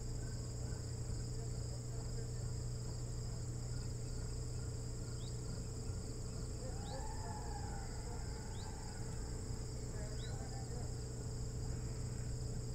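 Steady chorus of crickets over a low electrical hum. From about five seconds in, a short rising chirp repeats every second and a half or so.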